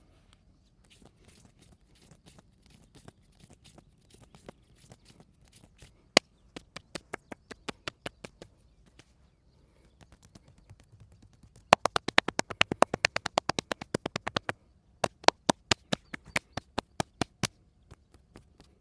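Percussive massage strokes: sharp slaps and claps of the masseur's hands striking the body in runs. The strikes start faint and get louder, with a slower run of about three a second, then a fast run of about ten a second near the middle, then a looser run.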